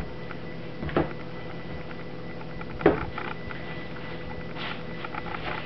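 Two dull knocks about two seconds apart as plastic soap loaf molds are set down on a table; the second knock is the louder. A steady low hum runs underneath.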